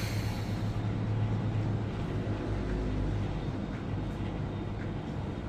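Steady low background hum with an even layer of room noise and no distinct event.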